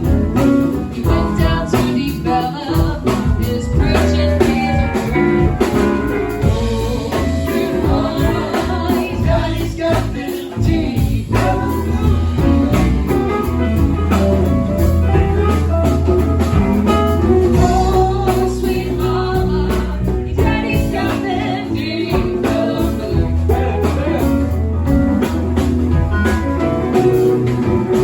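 Live band playing a song with singing, guitar and a strong bass line.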